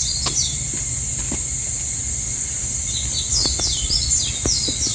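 Forest ambience: a steady high-pitched insect drone, with a small bird giving quick runs of short chirps near the start and again from about three seconds in, and a few faint scattered knocks.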